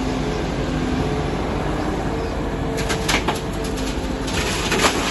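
Diesel engines of an excavator and dump truck running steadily. About three seconds in, and again near the end, there are bursts of gravel clattering and crunching.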